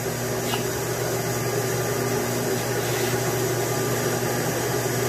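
Milling machine running a twist drill through an aluminum block: a steady motor and spindle hum with the drill cutting.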